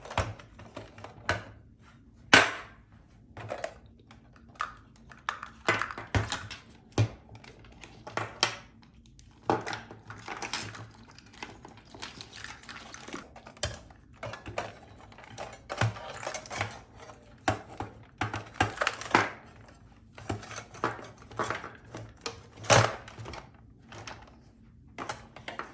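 Irregular plastic clicks, rattles and rustles from handling a car stereo head unit and its wiring-harness plugs, with two sharper knocks, one about two seconds in and one near the end.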